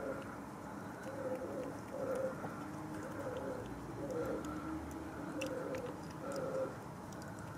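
A pigeon cooing, a run of short low coos about one a second, over faint clicking of a cat chewing wet food.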